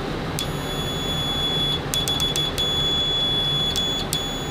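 RuoShui 33 multimeter's continuity buzzer giving a steady high-pitched beep, with a few sharp clicks and brief dropouts as the probe tips touch. The beep is quiet, about 56 dB at the sound meter, low for a continuity beeper.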